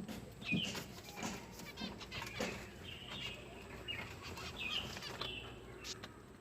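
A bird chirping repeatedly in short calls, with brief rustling and wing-flapping sounds between them.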